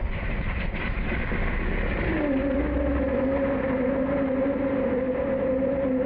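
Performance-built 426 Hemi V8 running hard through dual Flowmaster exhausts during a burnout, the rear tyres spinning on asphalt. About two seconds in the revs climb and then hold at a steady high note.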